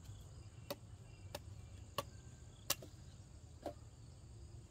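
Five sharp knocks, roughly one every two-thirds of a second, the fourth the loudest, over a steady high insect drone.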